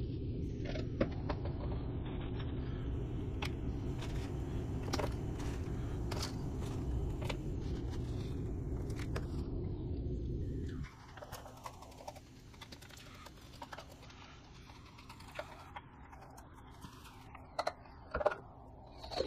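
Hands spreading loose fibrous bedding into a clear plastic worm bin: scattered light clicks, taps and rustles against the plastic, with a couple of louder knocks near the end. Under them runs a steady low rumble that cuts off abruptly about eleven seconds in.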